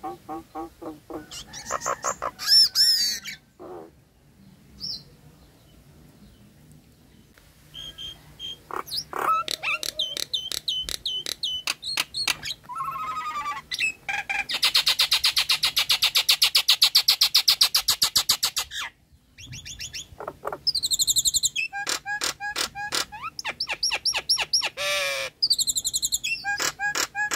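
Nias hill myna calling: loud, varied whistles and chattering notes, with a quieter stretch about four to seven seconds in and a long run of rapid, evenly repeated notes from about fifteen to nineteen seconds in.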